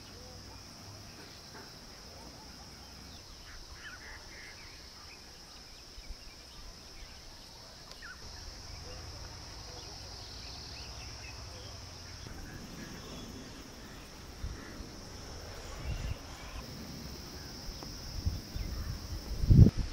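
Insects chirring steadily in a high, even drone, with low thumps and rumbles near the end.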